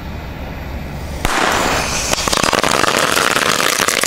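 A full pack of Lady Cracker firecracker strings going off in an enamel roasting pan: a dense, rapid crackle of many small bangs that starts about a second in and keeps going.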